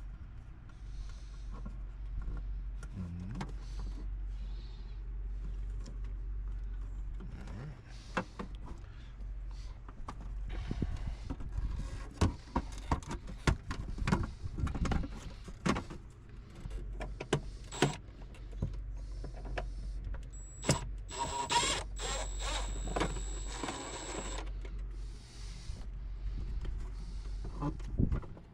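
Hands and tools working a boat's equipment box open: a string of clicks, knocks and scrapes over a steady low hum. From about 20 seconds in, a small electric motor whirs for a few seconds.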